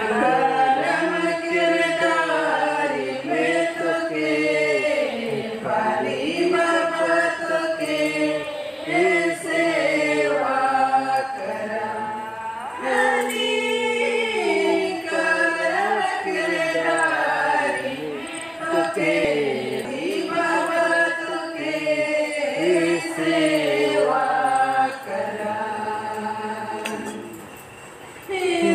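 A group of women singing a Karma song together, unaccompanied, in long held phrases with short breaks between them. The singing drops to a quieter stretch near the end.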